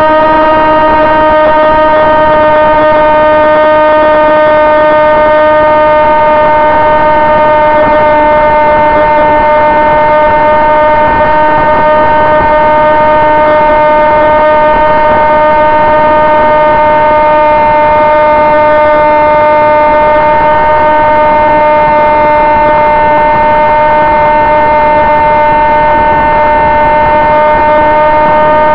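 Electric motor and pusher propeller of a Sonic Modell AR Wing FPV flying wing, heard from the onboard camera, droning at a steady, nearly unchanging pitch under a steady rush of wind.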